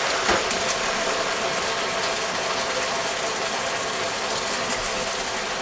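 A hot wok of chili-oil stir-fry sizzling steadily, a dense crackle and hiss as the water just poured in boils off in clouds of steam.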